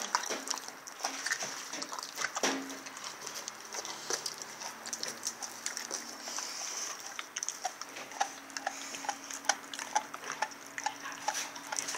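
Rottweiler chewing on a large chunk of raw veal, a string of irregular wet smacks and clicks from her jaws and the meat.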